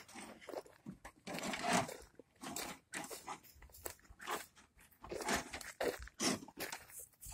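Footsteps crunching on dry dirt and loose gravel, an uneven run of short crunches about two a second.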